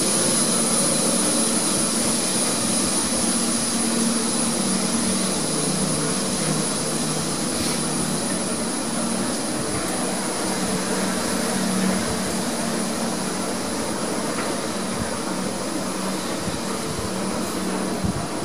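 Mitsubishi machine-room-less traction lift car travelling up its shaft, heard from the car roof: a steady rush of air and running noise from the guides and ropes, with a thin high whine.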